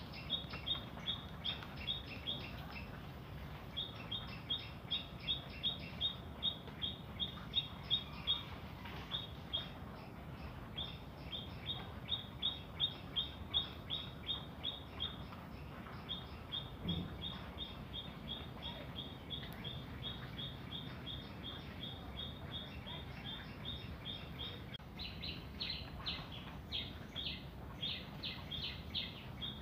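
A small bird chirping over and over, about four short, evenly spaced chirps a second in runs of several seconds with brief pauses, turning higher and more varied near the end, over a steady low hum.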